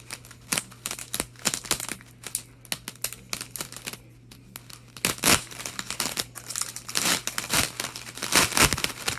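Plastic wrapper of a hockey card pack crinkling and being torn open: scattered sharp crackles at first, then louder tearing rips from about halfway through.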